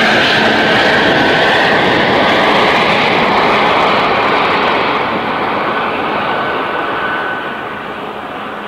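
Antonov An-124's four Progress D-18T turbofans at climb power, a loud, broad jet noise with a faint steady whine, passing and moving away. The high end dulls about halfway through and the sound fades over the last second or so as the aircraft recedes.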